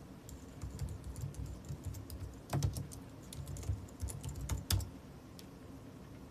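Typing on a computer keyboard: irregular key taps, with a few heavier knocks about two and a half and four and a half seconds in. The taps stop about five seconds in.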